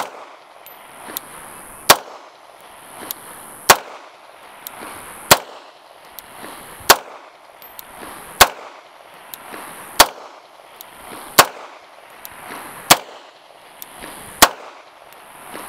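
Bersa TPR9 9mm pistol firing 115-grain FMJ rounds in slow, deliberate single shots, about ten of them, one every second and a half or so. Each shot is a sharp crack followed by a short echo.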